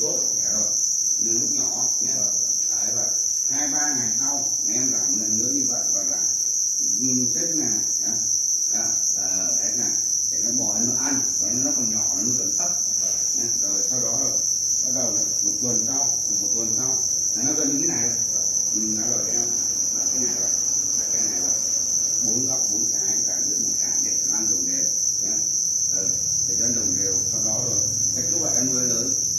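A dense chorus of farmed black crickets chirping all at once, a continuous high-pitched trill that never breaks. Indistinct talking sounds underneath it.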